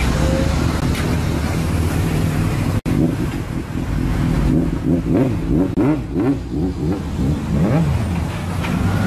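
Sport motorcycle engine running, with a brief break about three seconds in, then revved in a series of quick throttle blips, each rising and falling in pitch, over road traffic.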